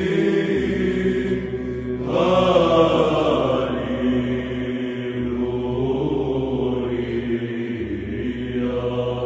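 Slow vocal chant with long held notes over a steady low drone; a louder phrase comes in about two seconds in.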